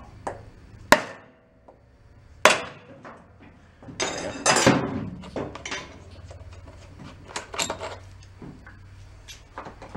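Mallet blows striking down on the centre of a Kohler Command 18 hp engine's flywheel while a pry bar levers it upward, trying to pop the flywheel off the crankshaft: two sharp strikes about a second and a half apart, then a longer clatter of metal and plastic about four seconds in and lighter knocks and clicks.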